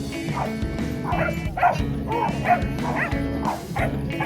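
Dog barking in quick succession, about two barks a second, over background music.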